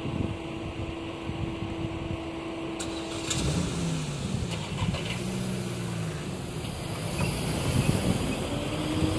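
Railway level crossing's first-generation electric warning bell ringing steadily, then stopping a little over three seconds in. The barrier drives then whir with a wavering pitch as the booms lift, and a car engine runs over low traffic rumble near the end.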